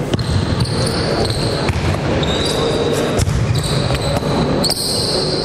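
A basketball bounces a few times on a hardwood gym floor, with drawn-out sneaker squeaks over a steady low rumble of movement in the hall.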